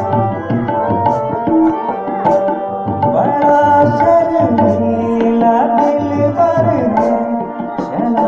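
A man singing a film song into a microphone, accompanied by tabla, with regular strokes and deep bass thumps, and a harmonium holding steady chords under the voice.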